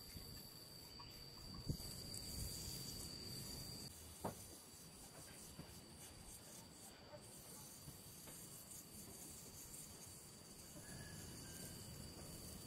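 Crickets trilling steadily, faint and high-pitched, with a couple of soft knocks about two and four seconds in.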